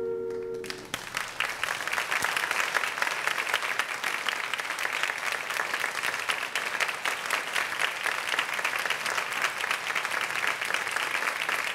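The held final chord of the music stops under a second in, and the audience breaks into sustained applause of many hands clapping.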